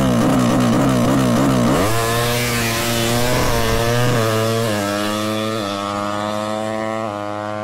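Suzuki Satria FU drag bike's four-stroke engine, tuned to 200cc, held at high revs with rapid bouncing, then launching about two seconds in. It pulls away through the gears, the pitch climbing and dropping sharply at each of four upshifts, and grows fainter as it runs off.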